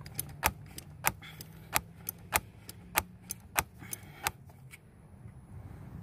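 Ratcheting box-end wrench clicking as it is swung back and forth on a bolt: about a dozen sharp metallic clicks, irregularly spaced, that stop a little over four seconds in. A faint low hum runs underneath.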